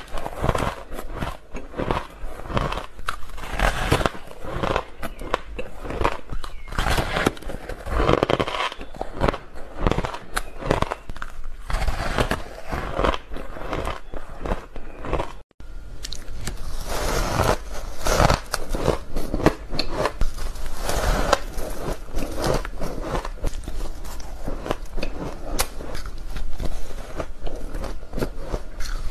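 Crunching bites and chewing of porous 'fluffy' ice: a dense run of rapid crackling crunches, broken by a split-second gap about halfway through.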